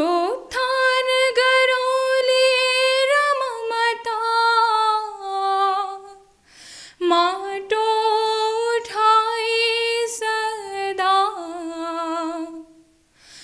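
A young woman singing lines of a Nepali poem unaccompanied. She sings two long phrases of held, slightly wavering notes, with a short breath between them about halfway. The second phrase steps down lower near its end.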